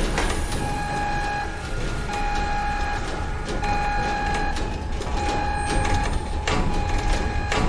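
An electronic warning alarm beeping over and over, five times, each tone just under a second long with about half a second between, over a low machinery rumble and occasional knocks.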